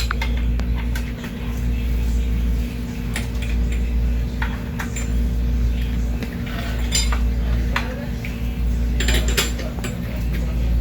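Small metal bicycle parts and tools clinking as they are handled, in scattered sharp clicks with a quick cluster near the end, over a steady low hum.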